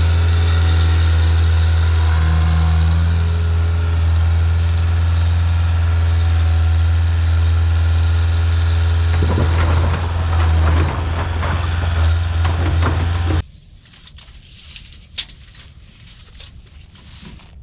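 Skid steer's diesel engine running steadily at close range, with irregular clanking and rattling about nine to thirteen seconds in. The engine sound cuts off abruptly about thirteen seconds in, leaving a quiet background with a few light footsteps.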